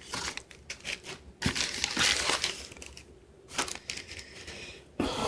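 Packing wrap crinkling and rustling in irregular bursts as it is crumpled and pulled out of a cardboard shipping box, with a short lull partway through.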